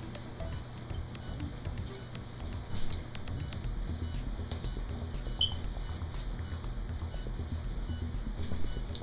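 Veterinary anesthesia monitor beeping in time with an anesthetized dog's pulse: a short high beep repeating evenly about every two-thirds of a second, roughly 90 a minute.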